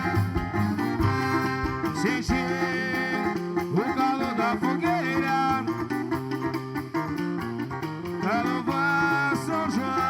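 A band plays an instrumental passage of a São João song between sung verses. Plucked strings and bass run over percussion, with a lead melody that bends in pitch.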